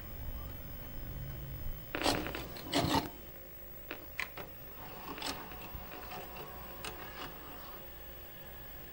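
Mechanical foley sound effects: two short rasping bursts about two and three seconds in, followed by scattered small clicks and ticks.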